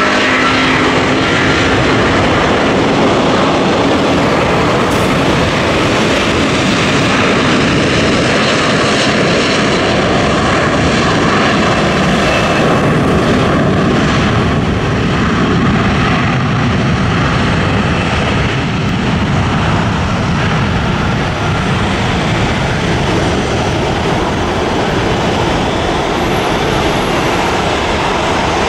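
Airbus A330-200's Rolls-Royce Trent 700 jet engines at takeoff thrust through the takeoff roll and liftoff: a loud, steady roar carrying the ragged buzzsaw tone of fan blade tips running supersonic.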